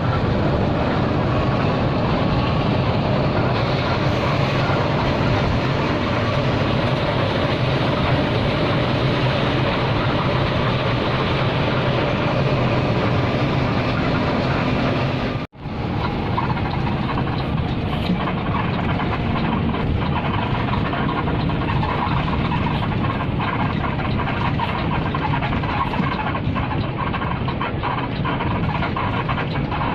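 NPM V35 intercity bus on the move, heard from inside: a steady mix of engine rumble and road noise. It cuts out for a moment about halfway through, and light rattles tick in the second half.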